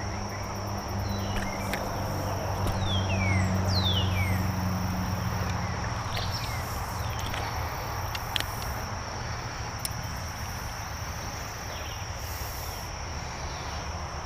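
Steady high-pitched insect drone with several short falling bird whistles in the first few seconds. Under it is a low hum that fades out about halfway through.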